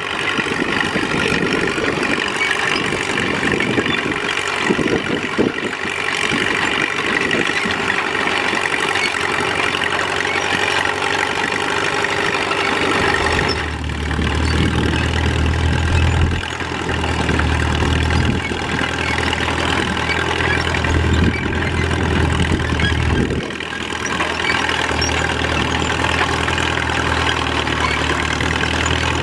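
1941 Caterpillar D2 crawler's four-cylinder D3400 diesel engine running steadily under load as it pulls a two-bottom moldboard plow. A deeper low rumble joins about halfway through and drops out briefly twice.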